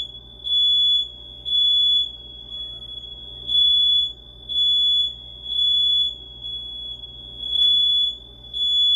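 House alarm sounding: one high-pitched electronic tone that beeps louder about once a second, without stopping.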